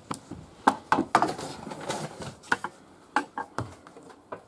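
Irregular sharp clicks and knocks, a dozen or so, with a rustling noise between them for a second or so near the start.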